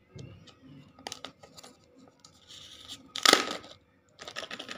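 Foil seal being peeled off a Kinder Joy plastic egg half, crinkling and tearing in short crackles, with a louder rip a little over three seconds in as it comes away.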